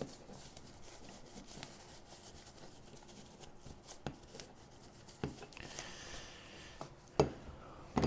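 A paper tissue rustling and rubbing as excess thread locker is wiped off a metal model-tank road wheel. A few light knocks come from the wheel being handled, the loudest near the end.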